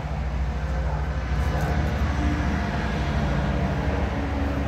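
Steady low engine drone, getting a little louder about a second and a half in.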